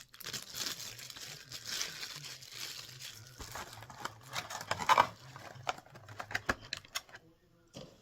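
Plastic packaging insert and cardboard ornament box being handled: crinkling for about the first half, then a run of sharp clicks and taps, loudest about five seconds in.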